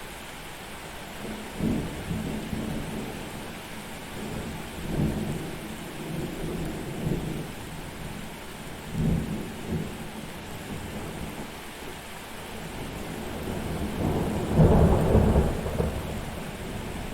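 Thunderstorm: steady rain hiss under rolling thunder that swells several times, with the loudest, longest rumble near the end.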